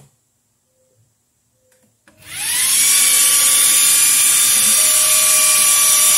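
xTool D1 Pro diode laser engraver starting a frame run. About two seconds in, its fan spins up with a quick rising whine and then runs loud and steady while the gantry moves the laser head around the board.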